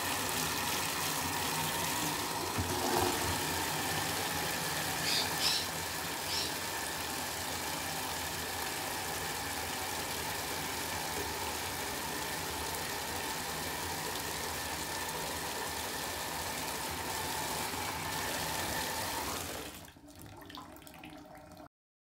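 Bathtub tap running hard into a plastic bucket, the stream splashing into rising, foaming soapy water as the bucket fills; the flow stops near the end. A few brief high chirps come about five to six seconds in.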